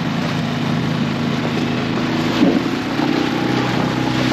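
Outboard motor pushing an inflatable boat at speed: a steady engine drone over the rush of water and wind.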